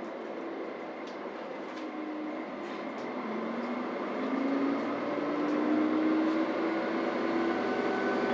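Diesel railcar engine of a Kiha 40 series running, its note rising in pitch and growing louder from about halfway through as it throttles up. A few faint clicks come before the rise.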